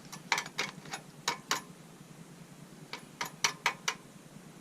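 Sharp metallic clicks and taps from hand tools being worked against the metal parts of an oil burner, in two quick clusters with a short pause between them.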